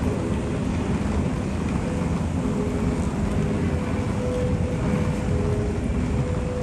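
Busy city street ambience: a steady rumble of traffic and street noise, with faint humming tones that come and go.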